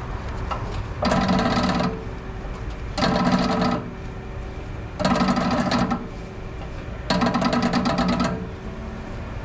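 Impact wrench run in four short bursts about two seconds apart, each a rapid hammering rattle, driving the threaded rods of a strut spring compressor to squeeze the coil spring.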